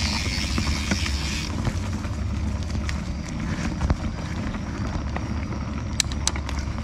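Canyon Spectral CF mountain bike being ridden over rough trail: a steady low rumble of tyres and riding, with scattered clicks and knocks as the bike goes over obstacles. A high hiss stops about one and a half seconds in, and two sharp clicks come close together near the end.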